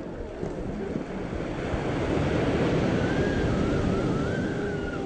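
Ocean surf breaking and washing up the beach, swelling louder about two seconds in, with wind rumbling on the microphone.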